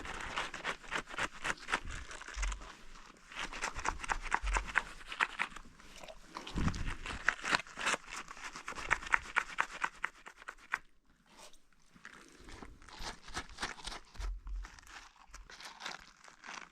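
Hands scrubbing a lamb's wet, soapy wool, a quick crackling and rubbing that pauses briefly about eleven seconds in.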